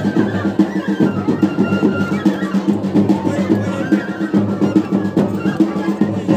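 Live traditional folk dance music: a double-headed barrel drum (dhol) beaten with a stick in a steady rhythm, with a sustained melody playing over it.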